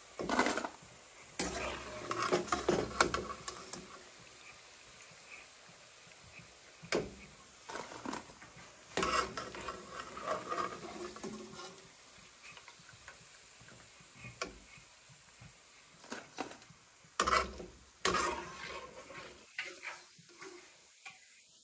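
Oil sizzling as fritters deep-fry in an aluminium kadai, with scattered clinks and scrapes of a steel slotted spoon against the pan and a steel plate as the fried bhajia are lifted out. The knocks come in clusters near the start and again later on.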